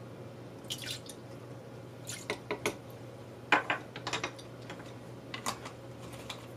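Worcestershire sauce dripping from a wooden measuring spoon into a stainless steel stockpot, with a few scattered light clicks and knocks as the sauce bottle and wooden spoons are set down on a wooden table. A low steady hum underlies it.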